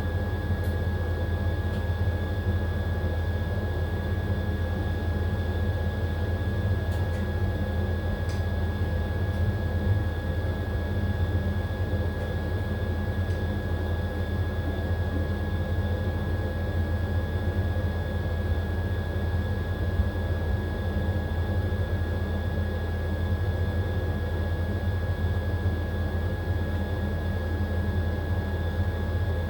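AQUA AQW-DX12M front-loading drum washing machine running steadily: a constant low hum with a thin, steady high whine over it.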